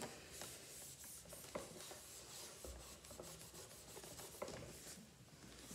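Faint rubbing of a hand-held wipe being rubbed over a computer monitor's screen to erase writing, with a few light ticks.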